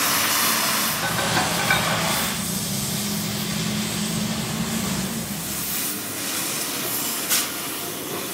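Oxy-fuel gas torch hissing steadily as its flame heats the steel axle housing at the flange weld, over a low hum that fades out about five seconds in.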